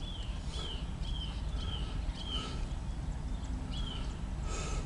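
Low, steady rumble of an approaching CSX diesel freight locomotive. Over it, a short, high falling chirp repeats about twice a second, pauses partway through, then comes twice more.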